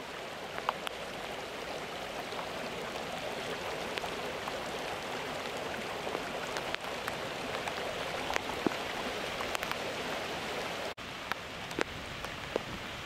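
Steady rain falling, with scattered sharp drops ticking close by. The sound cuts out for an instant about eleven seconds in.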